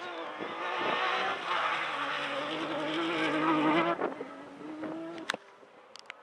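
Off-road rally car's engine driven hard as it passes along a dirt track, its pitch climbing, loudest from about one to four seconds in, then dropping away. A sharp click follows about five seconds in.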